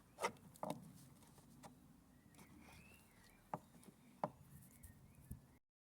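Faint scattered clicks and knocks of small objects being handled, about six sharp ones spread out, with a brief faint squeak about two and a half seconds in; the sound drops to dead silence shortly before the end.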